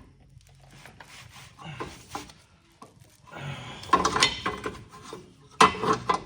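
Metal hand tools clinking and scraping against brake hardware while the brake-line banjo bolt on the caliper is undone, with two short bursts of clattering about three and a half seconds in and near the end.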